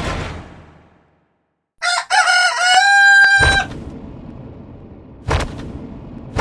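A sudden hit that fades out over about a second. Then, about two seconds in, a loud pitched call with many overtones: a few choppy notes that rise into one long held note. It gives way to a low noisy rumble, with another hit about five seconds in.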